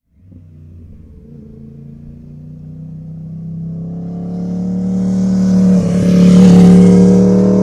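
Vehicle engine running, growing steadily louder over about six seconds with a slight rise in pitch, peaking near the end and then easing a little.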